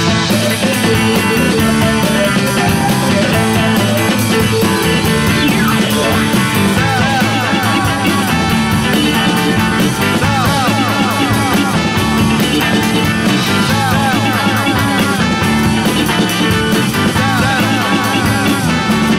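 Psychedelic rock music with guitar, an instrumental stretch without singing; from about seven seconds in, a line of repeated swooping notes joins it.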